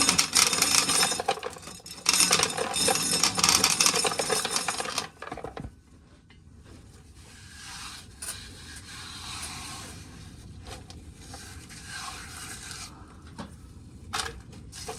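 Dry corn kernels rattling and clattering as corn is shelled into a bucket, loud for about five seconds and then softer.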